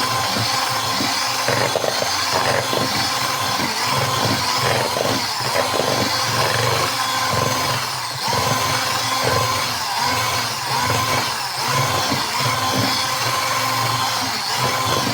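A small electric motor running steadily with a whine that dips briefly and recovers a few times.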